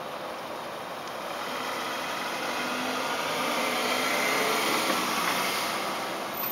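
Steady mechanical hum with hiss, growing louder from about a second in to a peak past the middle, then easing off.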